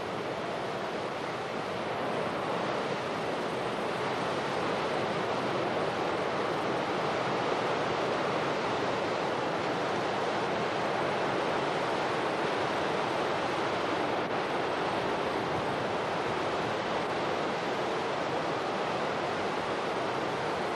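Steady rushing noise of floodwater pouring into a collapsing open-pit mine, a little louder after about two seconds, with wind buffeting the camcorder microphone.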